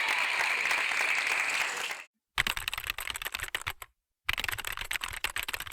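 A crowd applauding steadily for about two seconds, then cut off. After a short silence comes a dense, irregular run of sharp close clicks or claps, broken once by another brief silence.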